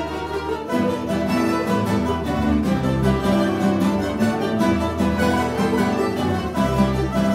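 Mandolin orchestra playing: mandolins, mandolas and mandoloncellos with classical guitars and a double bass. The ensemble swells louder about a second in, with many quick plucked notes over a low bass line.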